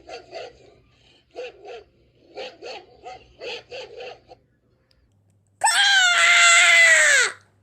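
A dog barking in quick runs of two to four short barks. About two seconds later comes one long, much louder pitched call that holds and then slides down in pitch at the end.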